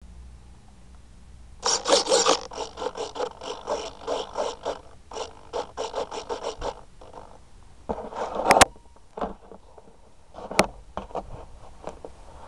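Handling noise right at a keychain camera's microphone: a rapid run of scraping and clicking, then a few sharp single clicks.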